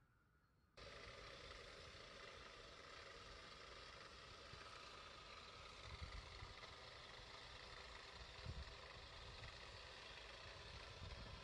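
Faint steady outdoor background noise that starts abruptly about a second in, with a few low rumbles later on.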